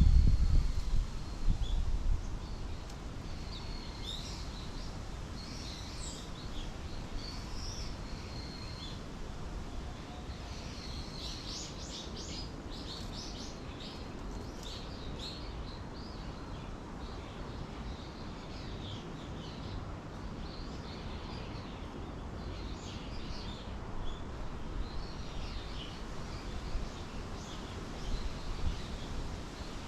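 Small songbirds chirping and twittering in short, quick calls, busiest in the middle, over a steady low rumble that is loudest in the first couple of seconds.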